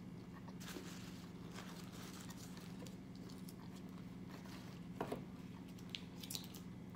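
Close-miked chewing of a mouthful of food with the mouth closed: soft wet mouth sounds and small clicks, with a couple of sharper clicks about five seconds in, over a steady low hum.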